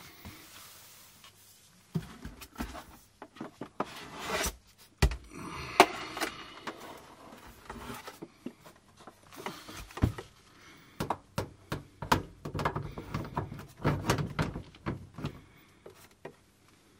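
Irregular knocks, clicks and rubbing of hard plastic and metal as a front-loading washing machine door and its hinge are handled and fitted against the machine's cabinet. The loudest knock is about six seconds in, and a quick run of knocks follows near the end.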